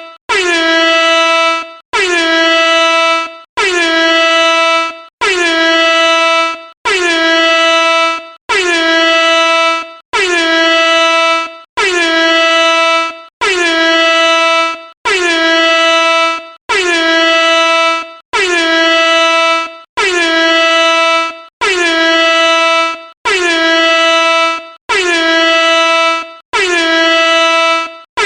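Air horn sounding the same short blast over and over, about one every second and a half, each blast just over a second long. Each blast holds two notes together, and the lower note sags slightly in pitch as it begins.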